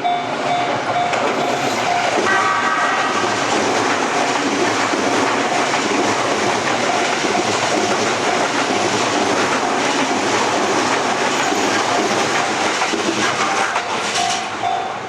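Electric train passing over a level crossing with a steady loud rush of wheels and running gear, and a short horn note about two seconds in. The crossing's pulsing warning bell is buried under the train and rings clear again near the end as the train moves away.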